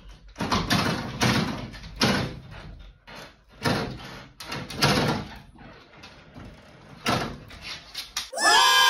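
A dog's paws scratching and knocking at a glass-paned door, rattling it in a string of separate bursts. Near the end a long, high-pitched cry comes in.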